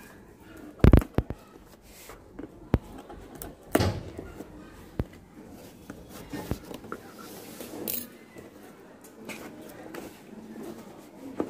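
Scissors cutting the packing tape on a cardboard shipping box while the box is handled and turned over, giving scattered sharp clicks and knocks. The loudest cluster of knocks comes about a second in.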